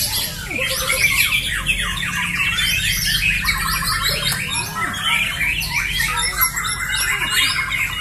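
Many caged white-rumped shamas singing at once in competition, a dense, loud tangle of rapid overlapping whistles, trills and sharp calls. This is the fast, aggressive song duel that fanciers call "adu tembakan".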